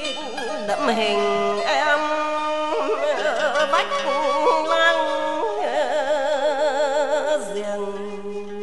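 Vietnamese traditional ensemble music of moon lute, bamboo flute and sixteen-string zither: a wavering melody with heavy vibrato over held plucked notes.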